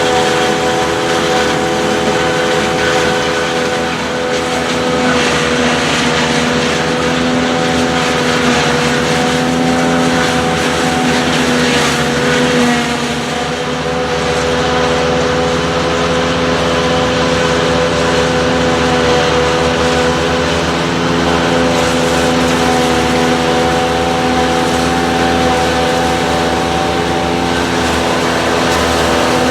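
Tractor and PTO-driven forage harvester running steadily while chopping maize: a constant engine hum with several held tones.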